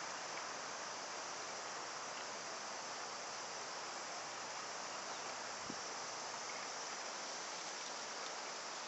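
Steady outdoor summer ambience: an even insect drone with no breaks, and one faint soft knock about six seconds in.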